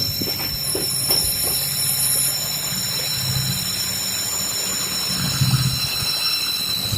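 Train running along the track with a steady low rumble and a steady high-pitched wheel squeal.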